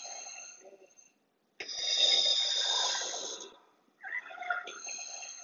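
Darth Vader's mechanical breathing sound effect played from the speaker of a Hasbro Star Wars Black Series premium electronic Darth Vader helmet replica. A raspy breath, then a louder hissing breath of about two seconds starting a second and a half in, then the raspy breath again near the end.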